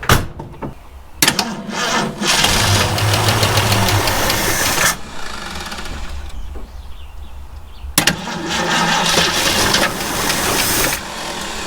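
1967 Ford Mustang engine cranking on its starter twice, about four and three seconds each, without catching. The starter has seen better days and the engine is turned over slowly; the engine isn't getting fuel.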